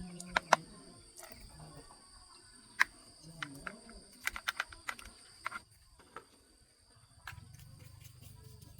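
Hand tools and metal parts clicking and tapping in sharp, scattered strikes during repair work. A faint low hum sets in about seven seconds in.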